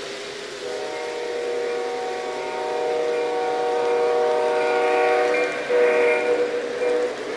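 Electronic sound system of an O-gauge model diesel locomotive sounding its air horn: one long blast, a short break, then a second shorter blast. The rumble of model trains running on the track continues underneath.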